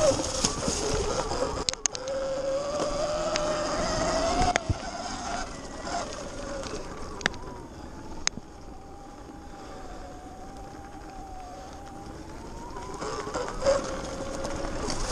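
Sur-Ron Light Bee X electric dirt bike riding off-road: the electric motor's whine rising and falling with the throttle over tyre and wind noise, with a few sharp clicks and knocks. It drops to a quieter coast in the middle and picks up again near the end.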